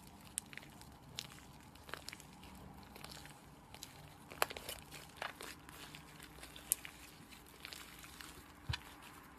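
Slime being worked by hand, giving scattered soft clicks and crackles with a few sharper pops.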